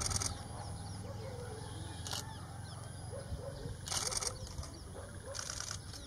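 Four short bursts of rapid camera shutter clicks, like a camera firing continuous frames. The longest and loudest comes about two-thirds of the way through. Faint bird chirps and a steady low rumble run underneath.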